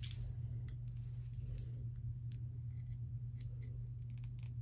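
Scissors snipping through the lace of a wig as a string of short, sharp cuts, several close together near the end, over a steady low hum.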